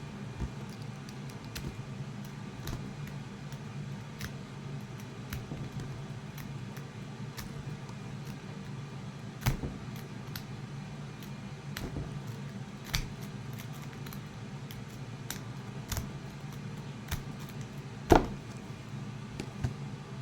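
Pick raking the pins of a Habo 402-50 padlock under a tension tool: a run of small metallic clicks and scrapes, with a few louder clicks, the loudest near the end, just before the lock comes open.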